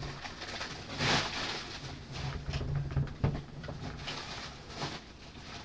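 Foil trading-card pack wrappers being gathered up and handled, with irregular crinkling and rustling and a louder crinkle about a second in.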